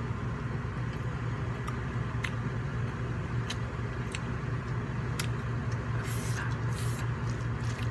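An RV's rooftop air conditioner running, a loud, rough, steady hum. A few small clicks of eating sound over it, and two short hisses come about six and seven seconds in.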